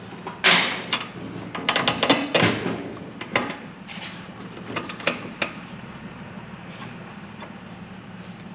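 Metal clanks, clicks and a short scraping rattle of tools and steel parts being handled while fitting a car's rear axle and suspension: a rattle about half a second in, a quick run of clicks around two seconds, then scattered knocks that thin out in the second half.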